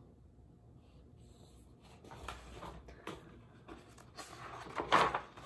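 Pages of a large picture book being turned: paper rustling and flapping, starting about two seconds in, with the loudest flap near the end.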